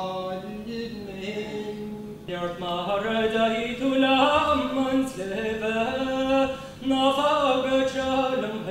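Unaccompanied male sean-nós singing: one man holding long, ornamented notes. About two seconds in it cuts to another man singing in the same unaccompanied style.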